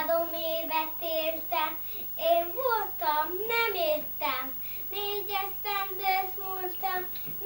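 A young child singing a tune in a high voice, with held notes and a few swooping slides up and down in pitch around the middle.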